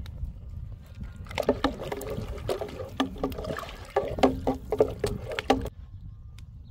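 Soup stirred in a large aluminium stockpot with a wooden-handled utensil: the liquid sloshes, and the utensil clicks and scrapes against the side of the pot, from about a second and a half in until shortly before the end. A steady low rumble runs underneath.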